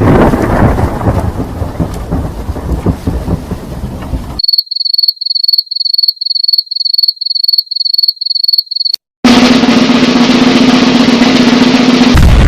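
A run of stock sound effects. First comes a thunderstorm rumble with rain-like noise for about four seconds. Then a cricket chirps in steady high pulses about three times a second, and it stops abruptly. After a short gap comes a harsh, dense noise with a steady low hum underneath.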